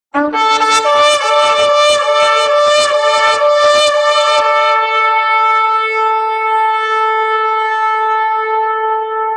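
A horn is blown. A brief low note steps up to a higher one, then comes a run of quick short blasts, about three a second, for some four seconds, and then one long held note.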